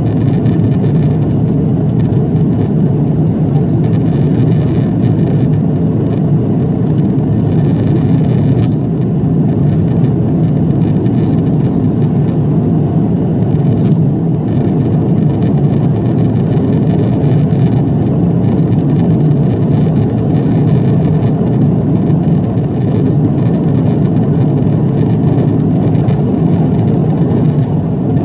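Cabin noise of an Airbus A340-300 climbing after takeoff: a loud, steady low rumble of its four CFM56 engines and the air rushing along the fuselage, heard from a window seat over the wing.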